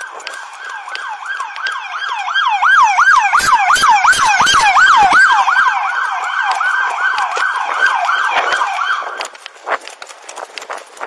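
Emergency vehicle siren in a fast yelp, sweeping up and down about three times a second. It grows louder, then stops about nine seconds in.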